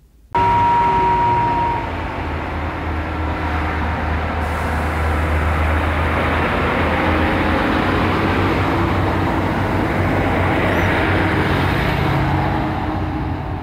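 Diesel train running past at close range: a steady low engine drone under loud wheel and rail noise, loudest in the first couple of seconds.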